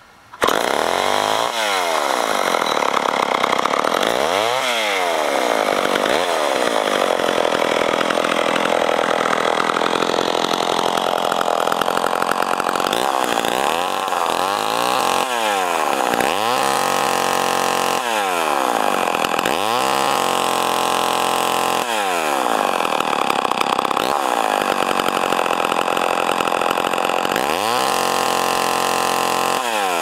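Poulan 245 Automatic two-stroke chainsaw catching right at the start, then idling with repeated throttle blips that rev it up and let it fall back to idle. Once it is held at high revs for a couple of seconds.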